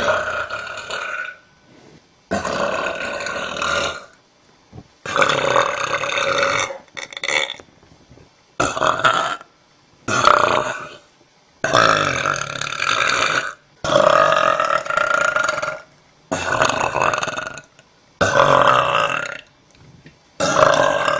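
A young woman belching over and over: about ten long, loud belches, each lasting a second or two, with short pauses between them.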